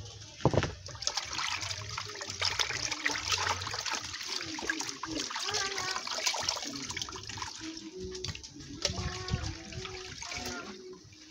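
Water splashing and dripping as pieces of meat and fish are washed by hand in an aluminium pot of water, squeezed out so the water streams back into the pot, with a sharp knock about half a second in.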